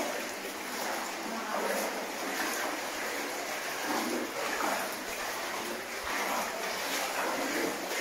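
Water sloshing and splashing around the legs of people wading through a flooded mine passage, surging with each stride.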